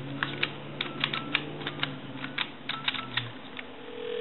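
Touch-tone keypad on a 1968 Western Electric Trimline wall phone's handset being pressed to dial a number: a quick run of sharp plastic key clicks over a low steady hum. Near the end a steady tone comes on the line.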